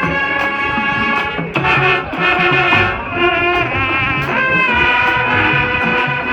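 High school marching band playing: brass sustaining full chords over steady drumline hits.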